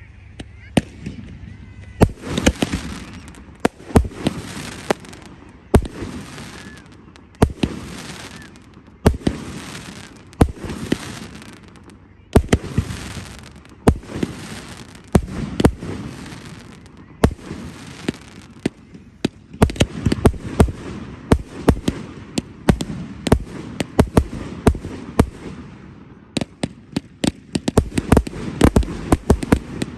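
Fireworks display: shells bursting with sharp bangs every second or two, each trailing a crackling hiss. The bangs come thicker and faster in the second half, turning into rapid volleys near the end.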